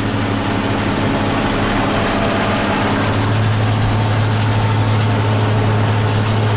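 New Holland 8160 tractor's six-cylinder non-turbo diesel engine running at a steady drone while it powers a round baler through the PTO.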